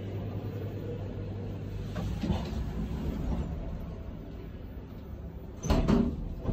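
Stainless-steel sliding doors of a 1999 Schindler Mobile 630 lift closing over a steady low hum, ending near the end with a loud clunk as the panels meet.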